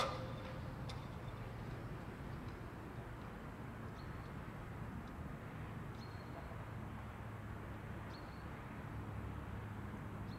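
Level crossing barrier booms finishing their rise, with a sharp clunk at the start as they come to rest. After it, a quiet steady low background hum with faint short high chirps about every two seconds.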